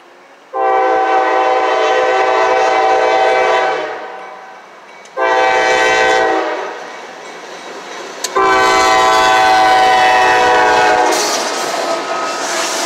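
Diesel freight locomotive's air horn sounding three blasts at a grade crossing: a long one, a short one, then another long one. Near the end the locomotive runs past, with engine and wheel noise.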